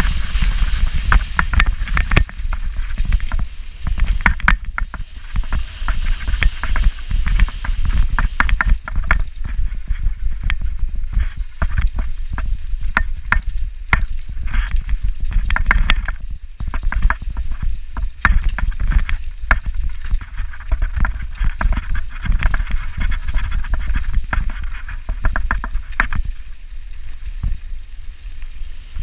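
Full-suspension mountain bike rattling and clattering over a leaf-covered trail at speed, with many quick knocks and clicks from the bike and tyres over the ground. Wind buffets the microphone in a steady low rumble underneath.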